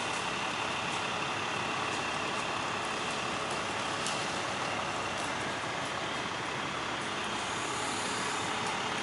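A utility bucket truck's engine running steadily.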